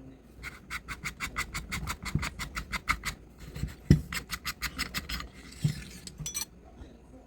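Fast, even clicking, about eight clicks a second in two runs, with a short scraping patch and a few dull knocks among them, from work on a VFC T91 gas blowback airsoft rifle being taken apart for an inner barrel swap.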